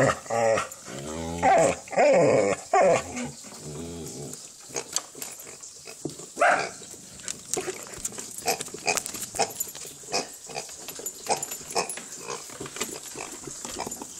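Dog vocalizing, drawn-out calls that waver in pitch over the first three seconds or so and one more brief call about six and a half seconds in, followed by a run of short irregular clicking noises.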